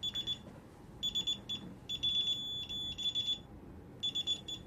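Alarm keypad buzzer beeping: short groups of rapid high pips about once a second, with one longer held tone about two seconds in.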